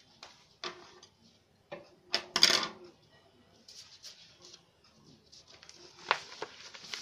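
A sheet of craft paper being handled and shifted on a tabletop, rustling and crackling in short bursts, with a few light taps of small tools on the table. The loudest rustle comes about two and a half seconds in.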